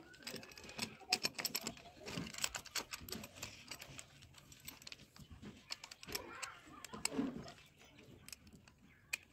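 Irregular small metal clicks and clinks as the bracket of a chainsaw attachment is handled and fitted onto an angle grinder's head, with metal parts knocking against each other.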